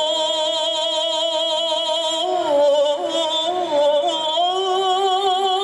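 A male qasidah vocalist singing long, held melismatic notes with a strong, even vibrato, the melody stepping down about two seconds in and rising again after four seconds.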